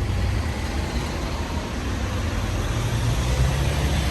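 City street background: a steady low rumble of road traffic.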